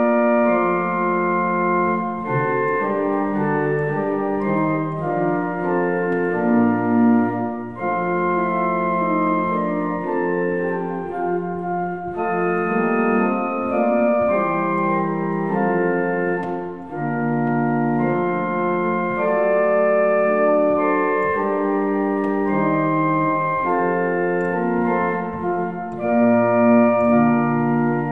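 Church organ playing a slow piece of long, held chords that move from one to the next, with a couple of short breaks between phrases.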